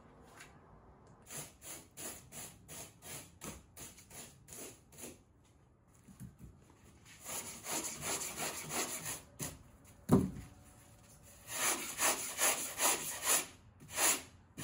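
A sanding block rubbing quickly back and forth over rigid styrofoam, about three scratchy strokes a second, in three runs with short pauses between. A single loud thump comes partway through.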